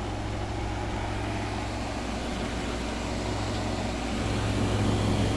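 Outdoor side of a 2016 Frigidaire 5,000 BTU window air conditioner running, its compressor and condenser fan giving a steady low hum that grows a little louder about four seconds in.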